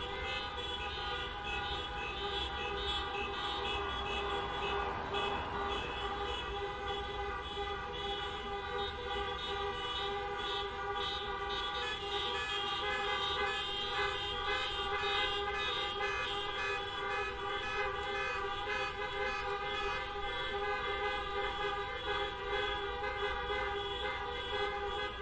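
Many car horns honking together in a dense, overlapping din that does not let up, over a low rumble of traffic: a honking protest in jammed traffic.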